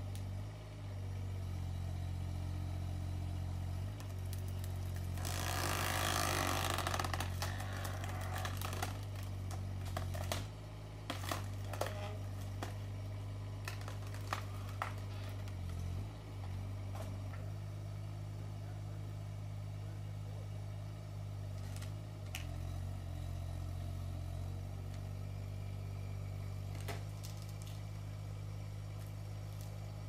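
Kubota mini excavator's diesel engine running steadily under hydraulic load as its log-splitter attachment works, the engine note dipping briefly several times. A rushing noise lasts about three seconds near the start, and a run of sharp cracks and knocks from the splitting wood follows midway.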